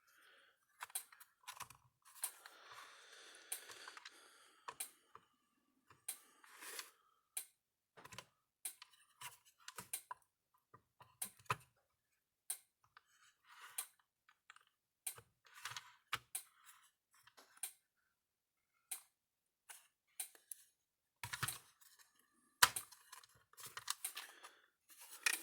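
Irregular small clicks, taps and light knocks of hands handling the opened fence charger's parts and tools on a workbench, with a brief rustle early on and a busier run of clicks near the end.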